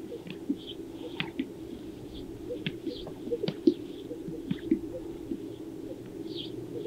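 Greater sage-grouse males displaying on a lek: a steady low chorus with repeated short, sharp pops from the males' inflated throat air sacs, one louder pop about halfway through.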